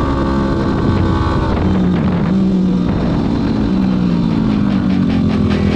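Yamaha WR250R's single-cylinder four-stroke engine running under way, holding a steady pitch, then beginning to rise near the end as the bike accelerates.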